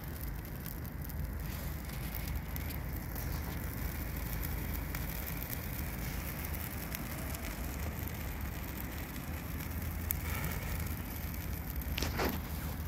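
Dry twigs and branches burning in a metal drum: a steady rush of flame with many small crackles and pops throughout, and a short rushing swell near the end.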